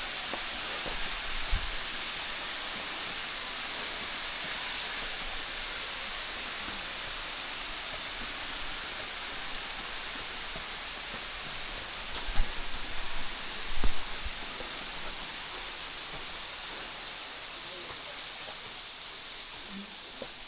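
Waterfall rushing steadily into a pool, a constant even roar of falling water. A few dull low thumps cut in, the loudest about twelve and fourteen seconds in.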